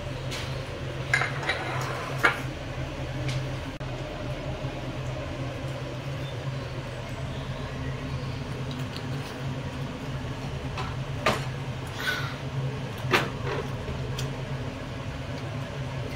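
Wooden chopsticks tapping and scraping on a sushi plate: a few sharp clicks, spread out, over a steady low hum.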